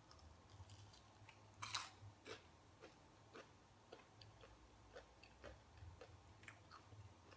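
Close-miked chewing of a fried, cheese-filled Doritos Loaded bite: one louder crunch a couple of seconds in, then soft, wet mouth clicks about twice a second.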